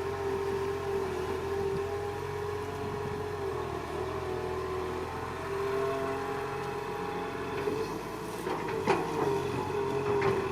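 Excavator running, a steady machine drone with a whine that wavers slightly in pitch. A few sharp knocks come near the end.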